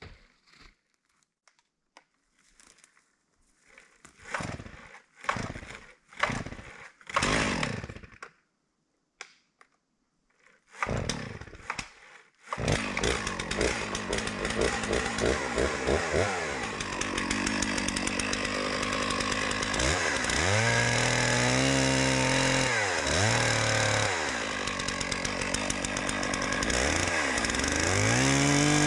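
Stihl MS660 Magnum two-stroke chainsaw pull-started: several quick pulls on the starter cord, and the engine catches about twelve seconds in. It then runs at high revs cutting, its engine speed dipping and recovering a few times under load.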